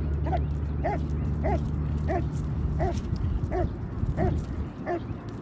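A dog giving short, pitched yips over and over at an even pace, about three every two seconds.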